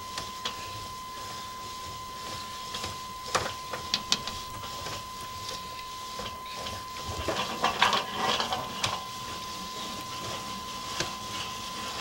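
Sewer inspection camera's push cable being drawn back out of the pipe: scattered clicks and rattles, with a busier clatter about eight seconds in, over a steady high electronic tone from the camera system.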